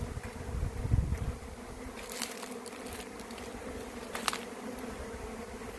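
Swarm of honey bees in flight: a steady drone of many bees buzzing around the microphone, with brief crackles about two and four seconds in.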